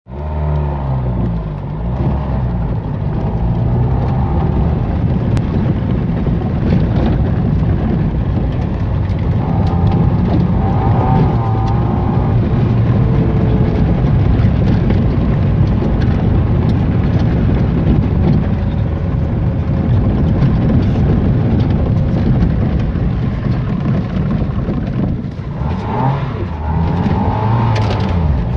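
Ford Capri engine running hard, heard from inside the cabin as the car drives over a rough gravel track, with the engine note rising and falling through gear changes near the start and again near the end, and a steady crackle of gravel under the tyres.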